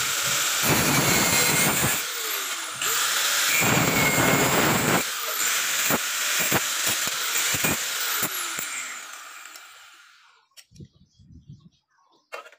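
100 mm angle grinder running with a steady high whine, its disc grinding against steel box-section tube, heaviest in two stretches in the first five seconds. About eight and a half seconds in it is switched off and whirs down over about two seconds, followed by a few light clicks.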